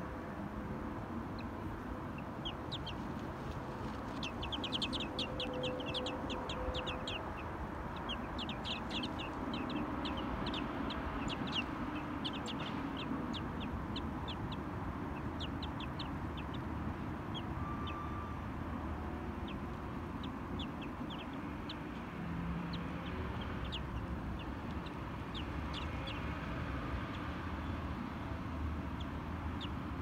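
Small birds chirping: quick runs of short, high-pitched chirps, densest in the first half and thinning out toward the end, over a steady low background rumble.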